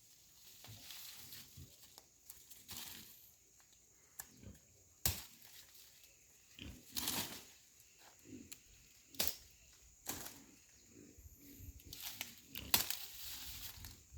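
Corn plants being pulled up and handled: dry stalks and leaves rustling and tearing, with several sharp crackling snaps.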